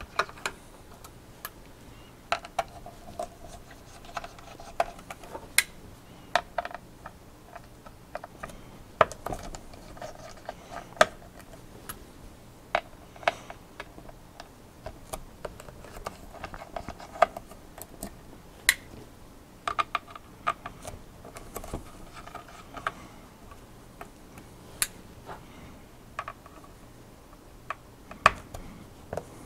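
Small screwdriver turning out the screws on the back of a GTX 680 graphics card: irregular light clicks and ticks of the driver on the screws, with brief scraping between them.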